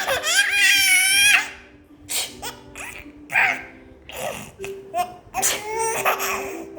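A baby's high-pitched squeal lasting over a second, then several shorter squeals and vocal sounds, over background music.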